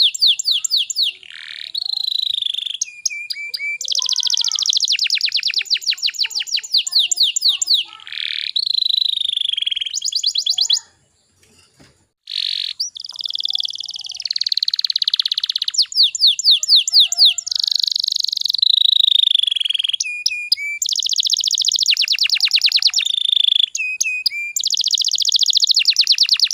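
Domestic canary singing a long, loud song of rapid trills and falling whistled notes, broken by a short pause about eleven seconds in.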